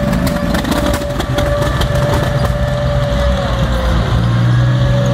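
A Centurion tank's Rolls-Royce Meteor V12 petrol engine running steadily as the tank drives off on a dirt track, with a run of clicks and clanks in the first couple of seconds.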